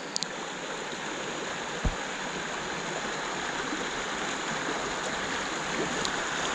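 Creek water rushing over a shallow riffle, growing slightly louder as it nears, with a single low thump about two seconds in.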